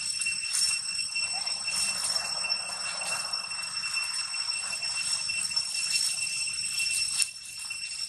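A steady high-pitched drone with a few faint ticks and a light hissy background.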